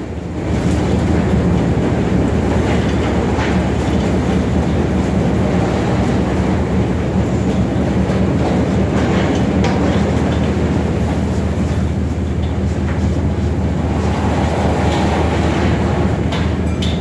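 Tunnel car wash machinery running: a steady low mechanical hum with rattling and a few faint knocks, from the conveyor and the red cloth mitter curtain swinging over a vehicle. It comes up to full level about half a second in.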